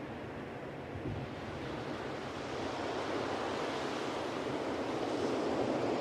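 Ocean surf on a beach: a wave building and washing in, growing louder over the second half.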